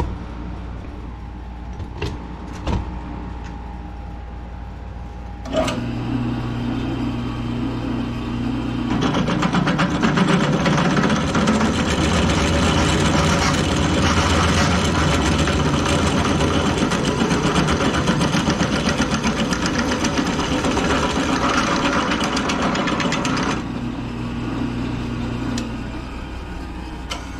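Drill press motor switched on about five seconds in, running with a steady hum; a few seconds later the large twist bit feeds into an aluminum tube and cuts with a loud, rough noise for about fifteen seconds. The cutting then stops and the motor runs on alone for a couple of seconds before it is switched off near the end.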